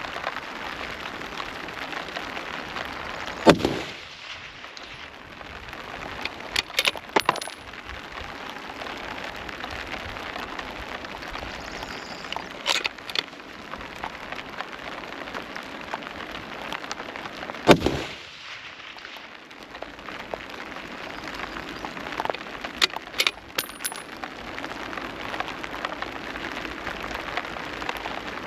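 Two shots from a Tikka T3X TAC A1 bolt-action rifle in .308 with a muzzle brake, about fourteen seconds apart, over a steady hiss of rain. Lighter clicks come a few seconds after each shot.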